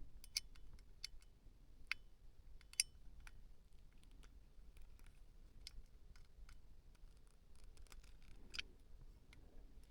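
Faint, irregular clicks and small scrapes of small hardware being handled while a nut is tightened with a little screwdriver, a few sharper clicks in the first three seconds.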